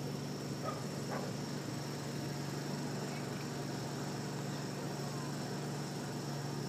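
Steady outdoor background: a constant high-pitched insect drone over a low steady hum, with no distinct event.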